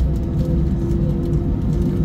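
Airbus A320 jet engines running as heard inside the cabin while the airliner taxis onto the runway: a steady hum over a low rumble.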